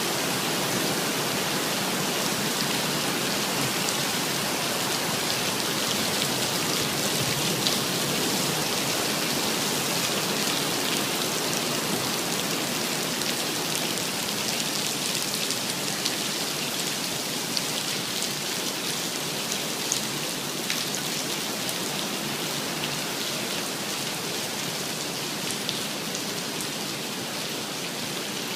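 Torrential rain falling steadily: a dense hiss of rain with scattered sharper drop ticks, easing slightly near the end.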